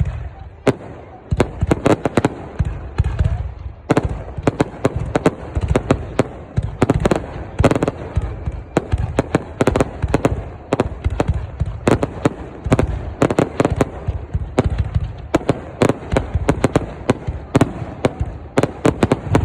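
Fireworks going off: many sharp bangs and pops in quick, irregular succession, several a second, with deep booms underneath.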